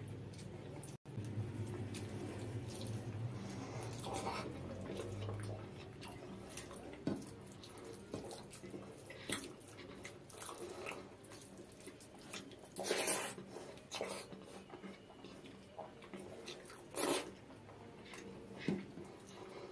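Close-up eating sounds from hand-eating rice with dal: chewing, lip smacks, and the wet squelch of fingers mashing rice into runny dal. Scattered short wet clicks, with a couple of louder wet smacks in the second half.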